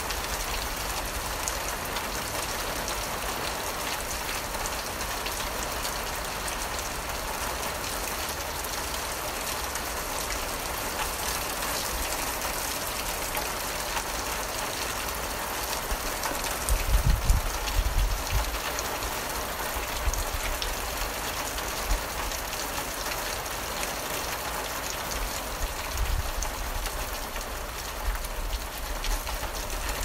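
Heavy rain falling steadily, an even hiss of drops. A low rumble rises for a couple of seconds a little past the middle, with fainter ones near the end.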